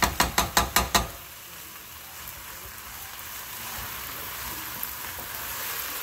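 Ground venison and potatoes frying in oil in a pot, with a steady sizzle. A wooden spoon knocks sharply against the pot about five times in quick succession in the first second, as the meat is broken up.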